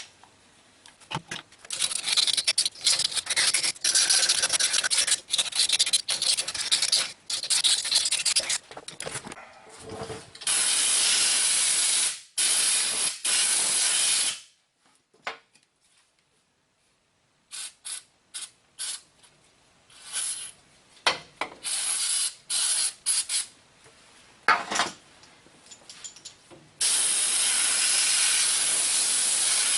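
Scraping and rubbing as the hub's O-ring groove is cleaned out, then hissing blasts of air blowing the groove clean: a long blast, a run of short ones, and another long blast near the end.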